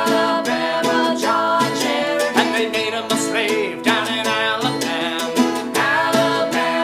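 Acoustic string band playing a folk tune: mandolin, banjo and guitar plucked in a steady rhythm.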